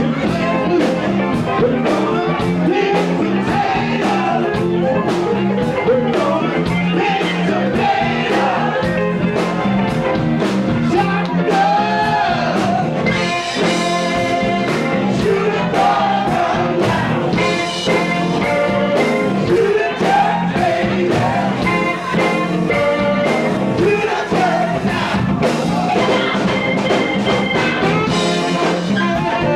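Live rock-and-soul band playing loud: several voices singing over electric guitar, saxophone and drums keeping a steady beat.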